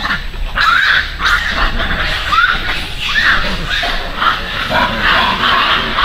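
Long-tailed macaques calling: several short calls that rise and fall in pitch, then denser calling from about five seconds in.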